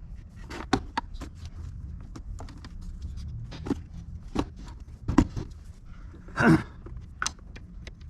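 Scattered light clicks and knocks of tools and parts being handled during wiring work, with one longer, louder rustle about six and a half seconds in.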